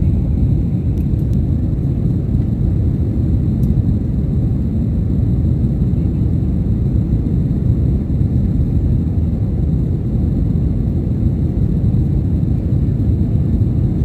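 Jet airliner cabin noise in flight: the steady, loud rumble of the engines and rushing air, heard from inside the cabin at a window seat.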